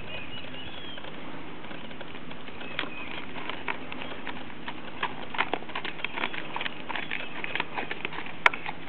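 Birds chirping over a steady outdoor hiss, with scattered light ticks and one sharp click near the end.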